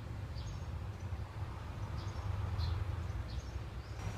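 Short high chirps of a small bird, repeating irregularly about once a second, over a steady low rumble.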